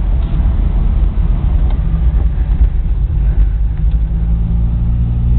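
Classic Mini's A-series four-cylinder engine running on the move, heard from inside the cabin with road rumble. The engine note settles to a steady pitch about four seconds in.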